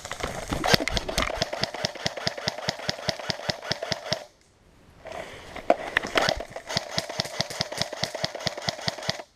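Airsoft electric gun (AEG) firing on full auto in two long bursts: a rapid, even rattle of shots over the whine of its motor and gearbox, with a break of under a second just past four seconds in.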